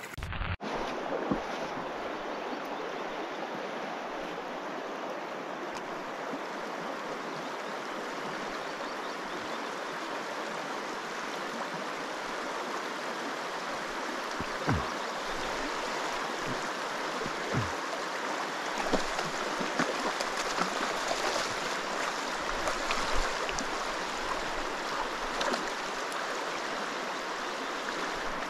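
Fast river current flowing steadily, with a few light knocks in the second half.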